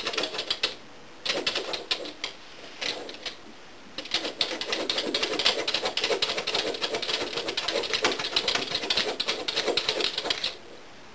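Two small dogs pawing rapidly at a glass door, their claws clattering and tapping on the glass to be let in. It comes in short spurts at first, then runs almost without a break for about six seconds before stopping near the end.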